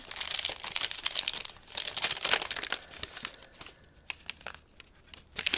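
Packaging crinkling as a small wrapped item is unwrapped by hand, in two dense spells in the first half, then scattered light clicks and rustles.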